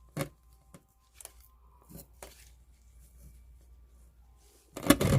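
Soft scattered rustles and small clicks of succulents and potting soil being handled while a mixed planting is pressed into a pot, with one louder burst near the end.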